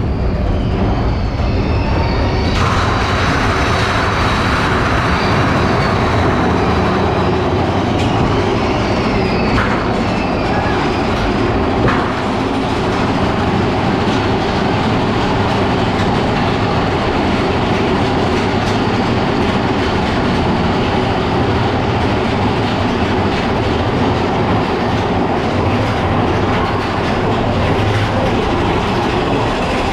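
Big Thunder Mountain Railroad mine-train roller coaster running on its track, heard from aboard the train: a loud, steady rail running noise that gets brighter and hissier about two and a half seconds in.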